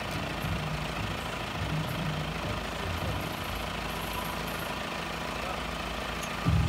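An off-road vehicle's engine idling steadily.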